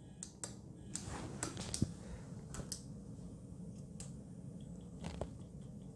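Scattered soft clicks and knocks of fingers working the push buttons of a small 3D-printed control box. A faint, even high ticking of about four a second starts near the end.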